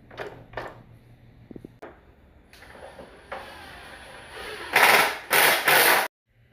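A few light clicks, then pressurised gas hissing out: a steady hiss from about two and a half seconds in, followed by three loud, short blasts that cut off abruptly.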